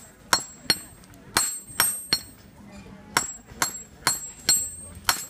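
A blacksmith's hand hammer striking metal on a small anvil, about a dozen sharp blows with a bright metallic ring, coming in uneven runs of two or three with short pauses between.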